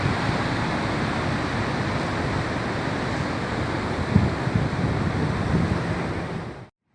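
Rough, choppy sea: waves breaking on the coast in a steady wash of surf, with heavier swells now and then. Near the end it fades quickly to silence.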